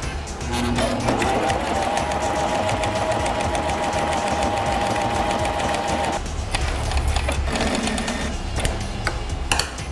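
Small electric sewing machine stitching through two sheets of paper: it speeds up about a second in, runs at a steady speed, and stops about six seconds in. A few sharp clicks follow near the end.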